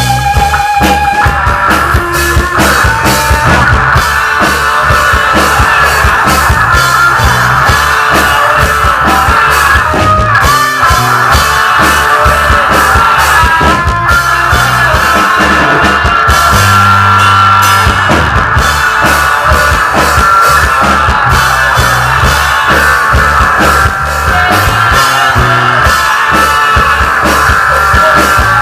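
Live rock band playing loudly: electric guitar and drum kit with steady beats.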